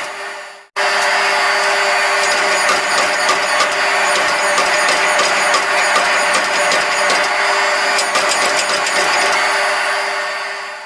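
Electric power tool running steadily, a continuous hum under a loud rushing noise with faint rapid ticks. It drops out briefly just under a second in and starts again at full level.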